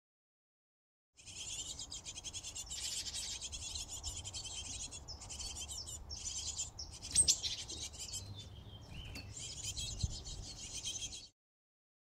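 Great tit nestlings begging inside a wooden nest box: a dense, rapid, high-pitched chorus of calls in bursts about a second long, over a low rumble. A sharp click about seven seconds in is the loudest moment. The sound begins about a second in and stops abruptly near the end.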